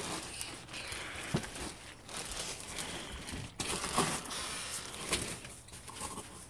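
Plastic wrapping and cardboard rustling as a gaming chair is handled out of its box, with a couple of sharp knocks.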